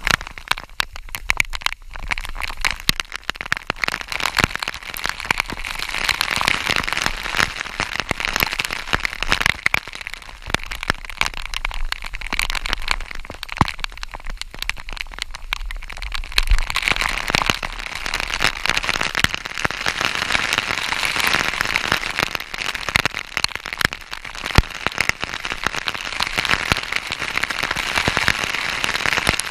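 Waterfall water splashing down, a dense crackling patter of drops and spray.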